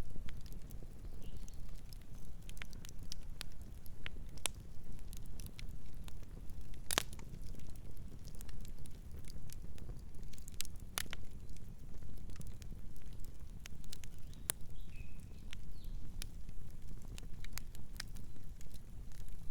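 Campfire burning: wood crackling in scattered sharp pops over a steady low rumble, the loudest pop about seven seconds in.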